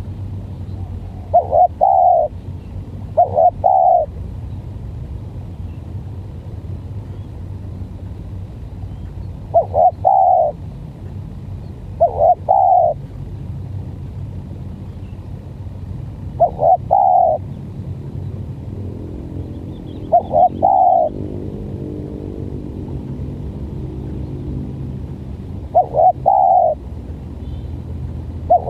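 Spotted doves cooing: short phrases of two or three clipped notes, repeated every few seconds, over a steady low rumble. About twenty seconds in, a faint engine-like hum passes.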